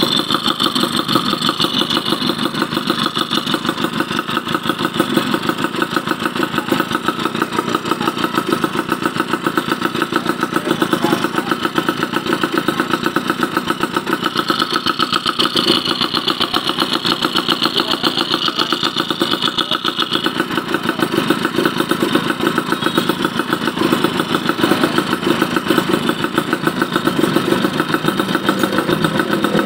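Yamaha F1ZR's two-stroke single-cylinder engine idling steadily while its carburettor is worked on and adjusted.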